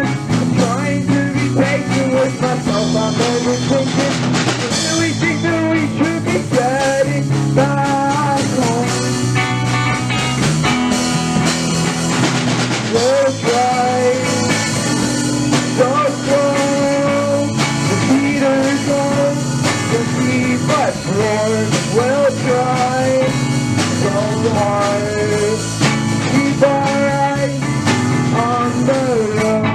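Indie rock band playing an original song on electric guitar, bass and drum kit, with a melodic lead line over a steady full-band groove.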